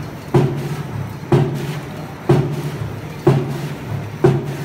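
Automatic die cutting machine running at a steady rhythm: a sharp cutting stroke about once a second, five in all, over a steady low machine hum.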